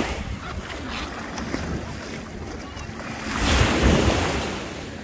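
Small waves washing in at the water's edge, with wind buffeting the microphone; the wash swells about three and a half seconds in.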